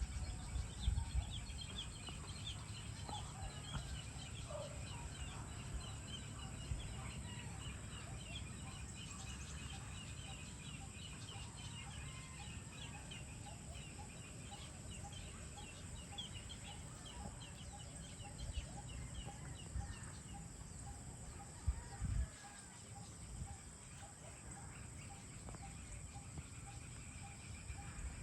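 Evening outdoor ambience: chickens clucking with birds calling, a fast, high chirping trill for much of the time, and an evenly repeated call about twice a second later on. A low rumble runs underneath, with a few knocks about a second in and again near the 22-second mark.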